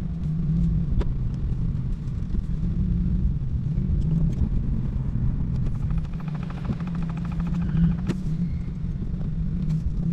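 Steady low drone of the Acura Integra on the move, engine and road noise together, with its exhaust still stock before the axle-back is fitted.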